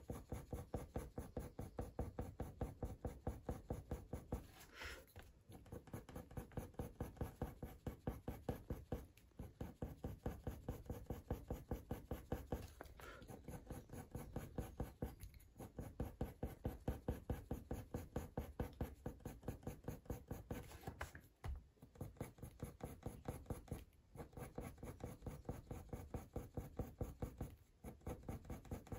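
Coloured pencil scratching back and forth on heavy hot-press watercolour paper, in quick rhythmic strokes several a second, with short pauses every few seconds.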